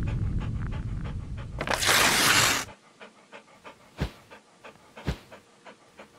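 Dog panting in quick short breaths, about three a second. At first a low rumble runs underneath, then a loud whoosh comes about two seconds in. After the whoosh the panting goes on alone with a few soft low thumps.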